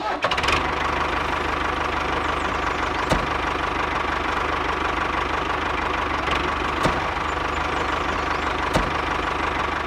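Miniature walking tractor's engine running steadily with a fast, even chug, with a light click three times.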